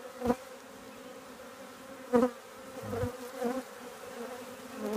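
Honeybees buzzing around an open hive, the buzz wavering in pitch as bees fly close by. A few short sharp knocks stand out, the loudest just after the start and about two seconds in.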